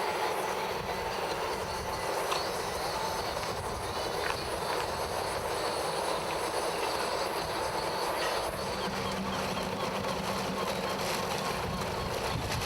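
Steady rumbling noise of a moving vehicle, with faint clicks, like riding in a train; a low steady hum joins in about two-thirds of the way through.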